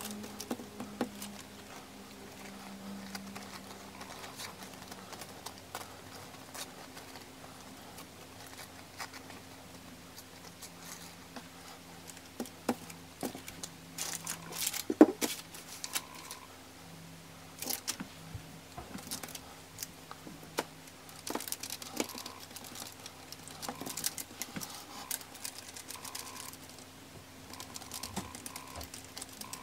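Plastic cereal-box liner crinkling and rustling under hands, with scattered light taps and clicks that are busiest about halfway through.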